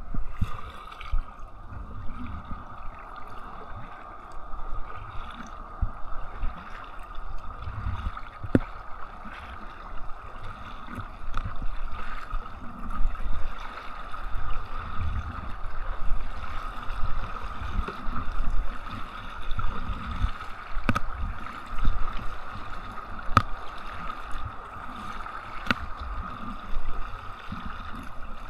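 Water sloshing and gurgling against a kayak hull as it moves through the water, in uneven surges every second or two. A steady high hum runs underneath, and there are a few sharp knocks.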